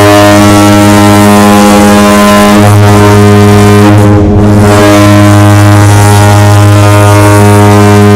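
Goal horn sounding one long, loud, steady blast on a single low note, wavering briefly twice.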